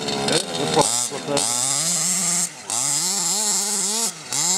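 A 1/5-scale RC car's 30.5 cc two-stroke engine running under throttle, its pitch rising and falling repeatedly with two brief dips. The engine is beat, with a little weak compression, and runs pretty rough.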